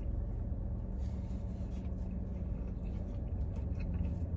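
Steady low rumble and hum inside a car, with faint small clicks of someone chewing food.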